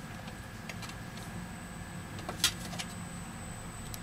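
Light scattered clicks and taps of the phone's aluminium-alloy frame against a flat metal plate as it is checked for bending, with one sharper metallic click about two and a half seconds in, over a low steady hum.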